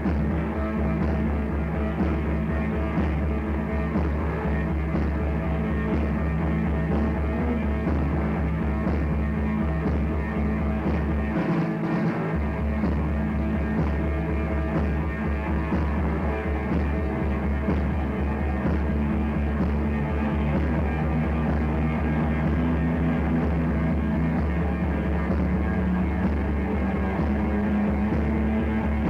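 A rock band rehearsing, played back from a cassette tape recording: a dense, continuous wall of band sound with a heavy low end and dull, muffled treble. The lowest notes drop out for about a second around twelve seconds in.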